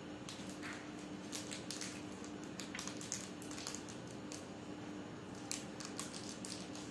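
Crinkling and crackling of a chocolate bar's wrapper being torn open and peeled by hand, in irregular bursts that are thickest in the first half and again near the end, over a steady low hum.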